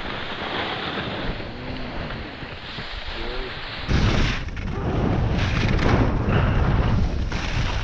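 A quieter steady hiss for about four seconds. Then loud wind buffeting the camera microphone with a rushing scrape of a snowboard sliding down a groomed run, rising and falling in gusts.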